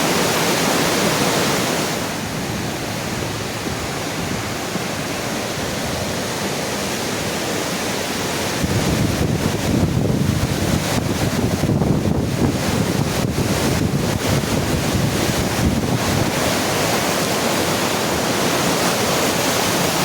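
Steady rushing roar of a swollen, flooding creek, with wind buffeting the microphone and adding a low rumble from about halfway through.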